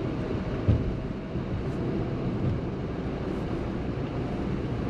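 Maruti Suzuki Ciaz driving, heard from inside the cabin: a steady low rumble of road and engine noise, with one brief thump a little under a second in.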